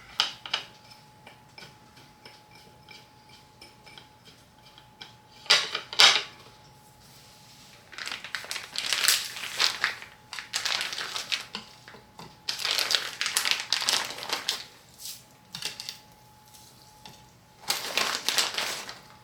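Kitchen prep noises: scraping and clinking of utensils and dishes in about six short bursts of a second or two each, with a faint steady hum underneath.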